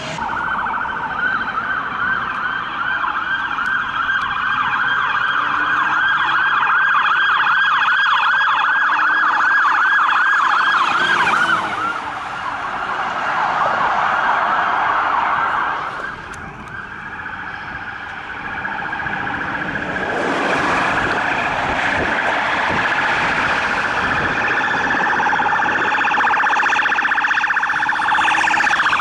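Police car sirens: a fast yelp sweeping up and down about twice a second, changing about twelve seconds in to a slower wail, then after a brief drop a different police siren sounding through to the end.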